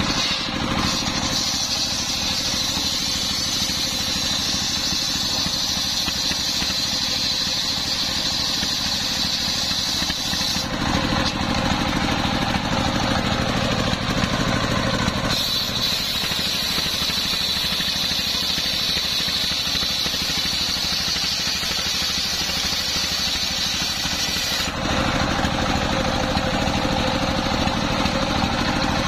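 Large circular saw blade driven by a stationary engine ripping through coconut-palm wood. Two cuts, each a steady high whine lasting about ten seconds, over the constant running of the engine. Between the cuts the blade spins free for a few seconds.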